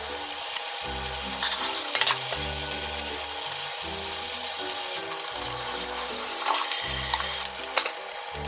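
Eggs frying on slices of ham in a small square pan, a steady sizzle that dips slightly about five seconds in. A few sharp clicks, the loudest about two seconds in. Background music with a plodding bass line underneath.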